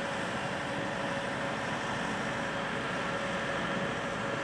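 Steady noise inside a car's cabin while driving: road and engine noise with a few faint steady whining tones running through it.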